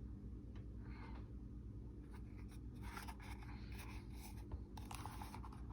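Faint scratching and rubbing from objects being handled against a surface, over a low steady hum.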